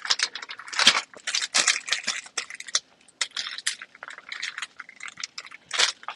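Thin plastic food bag crinkling and rustling in irregular bursts as it is handled and opened.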